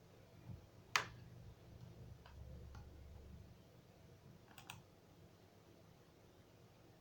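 A few faint clicks at a computer, one sharper about a second in and a quick double click near five seconds, over quiet room tone.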